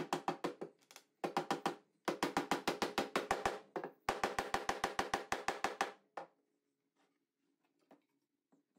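Rubber mallet tapping a plywood fence board in quick, even runs of about seven or eight knocks a second, with short pauses between runs, seating the board onto the sled base. The tapping stops a little after the middle.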